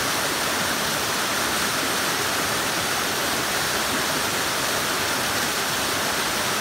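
A waterfall sliding and splashing down a steep rock slab, a steady, unbroken rush of white water.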